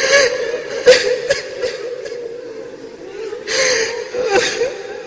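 A man weeping during a pause in Quran recitation, with sharp sobbing catches of breath about a second in and a longer breathy gasp near the middle.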